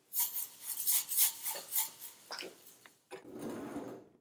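Small decorative beads rattling as they are shaken out of their container and sprinkled on, a run of short rustling bursts, followed by a duller rubbing sound about three seconds in.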